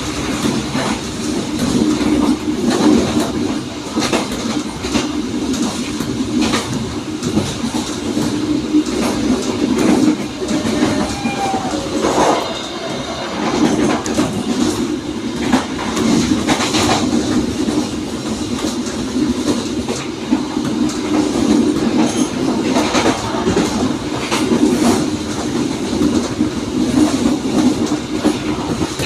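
Passenger train running along the track, heard from the back of the moving train: a steady rumble with irregular clacks of the wheels over rail joints. About eleven seconds in there is a brief high squeal.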